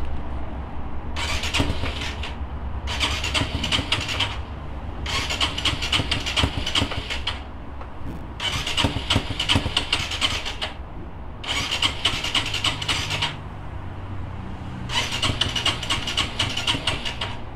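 Honda RS150R's single-cylinder engine being cranked by its electric starter six times, one to two seconds each, without catching. The owner puts the failure to start down to a badly leaking, rusted exhaust.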